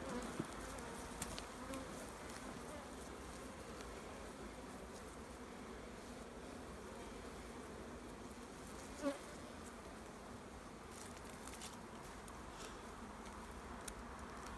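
Honeybees buzzing steadily around an open hive, a faint, even hum. A single brief knock about nine seconds in.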